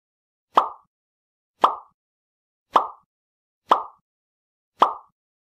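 Five short, identical percussive hits about a second apart, each sharp at the start and dying away within a quarter second, with dead silence between: an intro sound effect marking the logo animation.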